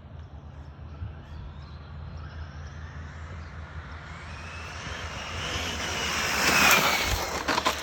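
Fast RC car running past: a high-pitched motor whine that grows louder over several seconds and peaks about two-thirds of the way in. The pitch then drops as it goes by, with a few sharp clicks near the end.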